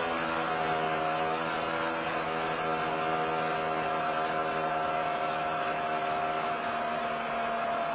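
Snowmobile engine running on with its throttle stuck open: a steady high-pitched whine that sags slowly in pitch.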